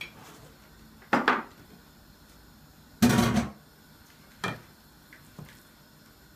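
Metal serving tray and dishes knocked down onto a table: a clunk about a second in, then a louder ringing clatter about three seconds in, followed by a lighter knock and a small click.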